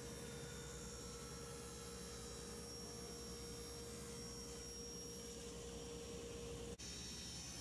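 Faint steady hum with one held mid-pitched tone, with no sawing or cutting noise; it breaks off at an abrupt cut near the end, after which the hum carries on without the tone.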